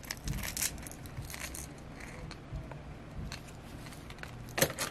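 Faint scattered clicks and light rustling from fingers handling a hard plastic jerkbait, its treble hooks and nose ring while heavy leader line is threaded on, with a sharper click near the end.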